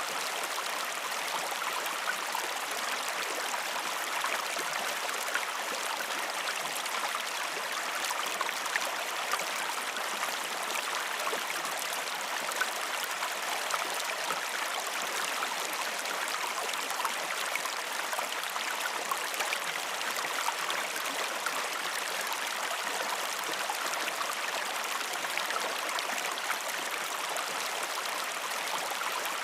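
A river's water flowing and babbling over rocks, a steady rushing with small irregular splashes and gurgles.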